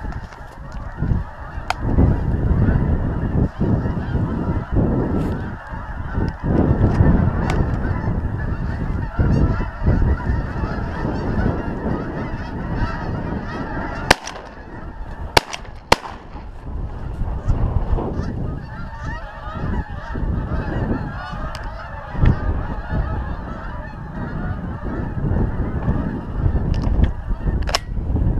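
A large flock of wild geese honking continuously overhead, under a low wind rumble on the microphone. About halfway through come three sharp cracks close together: the hunter's shotgun shots at the flock.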